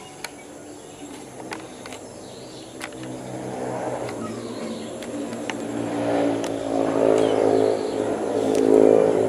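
A motor vehicle engine running at a steady pitch and growing louder from about three seconds in, loudest near the end. A few sharp ticks come before it.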